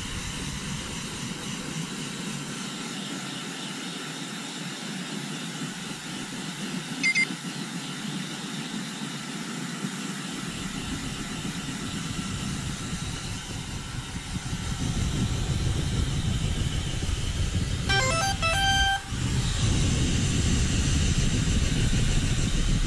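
Hair dryer blowing steadily, a rushing airflow with a faint steady whine from its fan. It grows louder in the last several seconds.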